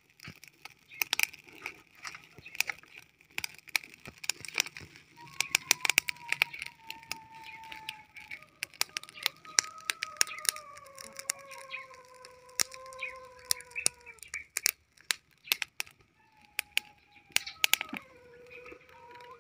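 Firewood crackling and snapping in an open-fire stove, with irregular sharp pops throughout. Roosters crow in the background, three long, slowly falling crows from about five seconds in, two of them overlapping.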